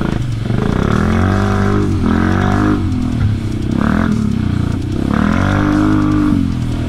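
Quad bike's engine running under load, its pitch rising and falling repeatedly as the throttle is worked.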